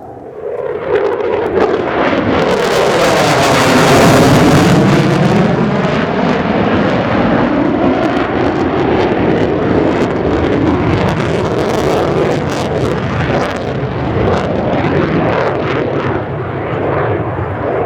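F-15DJ Eagle fighter jet's twin turbofan engines in a fly-by: the jet noise swells sharply about half a second in, peaks around four seconds with a sweeping, phasing tone as the jet passes, then stays loud as it flies on.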